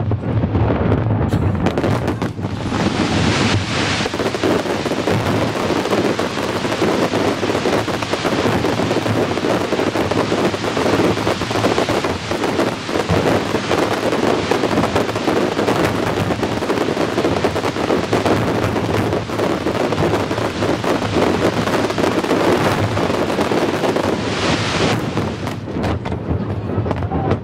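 Aerial fireworks display: a dense, unbroken barrage of shell bursts and crackling. A louder hissing crackle comes in about two to four seconds in and again near the end.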